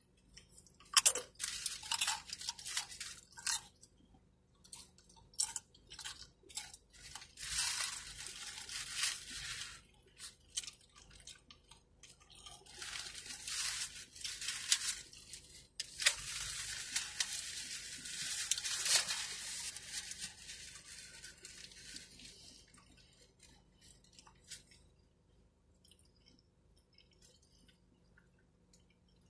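Close-up eating sounds: tortilla chips crunched and a burrito chewed, crisp crackling bites coming in bursts, then dying down to faint chewing for the last several seconds.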